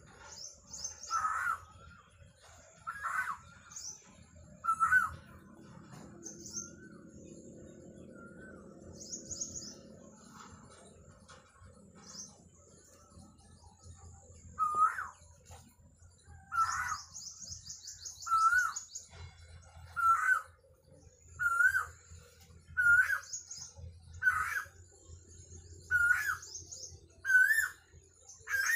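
Birds calling: one bird repeats a short, hooked whistled note about every second and a half, while others add quick, high trilling chirps.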